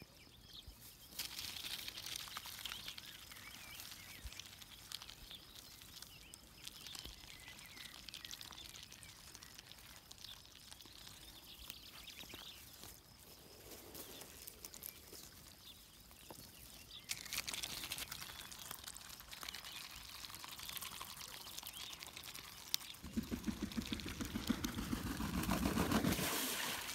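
Juvenile Muscovy ducks pecking and nibbling in grass close by: a run of soft clicks and rustles. Near the end comes a louder, pulsing low sound lasting about three seconds.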